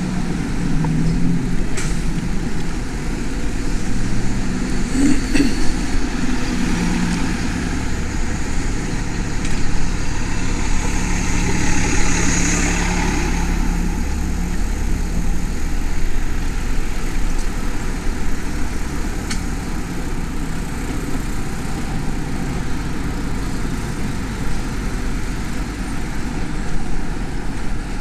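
City street traffic heard from a moving bicycle, with a steady low wind rumble on the chest-mounted camera's microphone. A vehicle engine hums through the first half, and a vehicle passes with a swell of noise about twelve seconds in.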